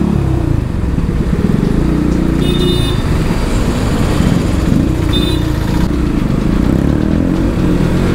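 Motorcycle with a very loud exhaust running at low speed in slow traffic, its pitch rising and falling as the throttle is worked. A vehicle horn beeps briefly twice, about two and a half and five seconds in.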